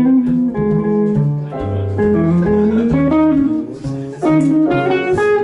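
Band playing a jazz tune: a guitar carries the line over a moving bass line.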